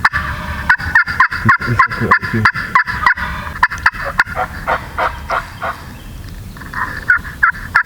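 Turkey yelps in quick runs of short notes, about five a second, the longest run in the first three seconds and shorter runs about five and seven seconds in.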